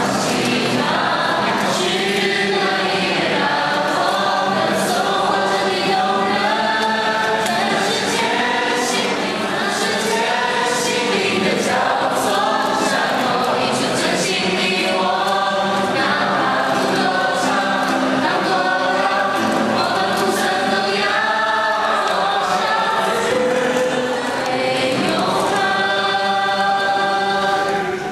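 A group of teenagers singing a song together in chorus, reading the words from lyric sheets.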